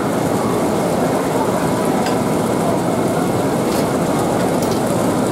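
Steady, loud background din, with a few faint clicks as scissors snip into spiny sea urchin shells.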